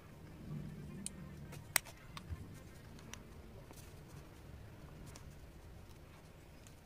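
Faint handling noise of a rolled paper tube being turned and moved on a desk: scattered light clicks and taps, the sharpest a single tick about two seconds in.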